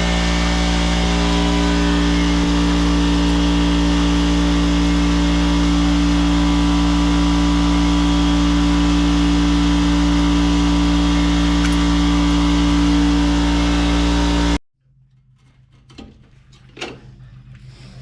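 A motor or engine running steadily at one unchanging speed. It cuts off abruptly near the end, and a few light clicks and knocks follow.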